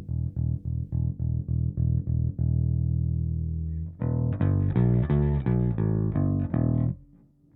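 Electric bass, a Squier Precision bass with a DiMarzio Model P pickup, played through a Hiwatt Bulldog 440 bass amplifier. It starts with a run of short, evenly repeated notes, goes into a held note, then plays louder, brighter notes before stopping about seven seconds in.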